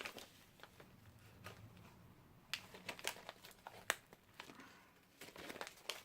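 Faint crinkling and rustling of a plastic candy wrapper being handled, in scattered short crackles that thicken near the end.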